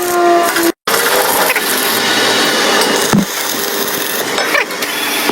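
Electric arc welding crackling steadily, cutting out for a moment about a second in.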